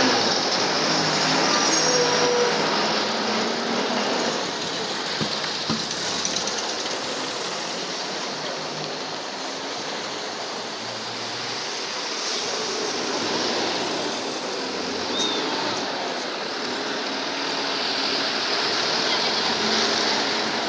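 Diesel city bus engine running, with a steady traffic and road rumble.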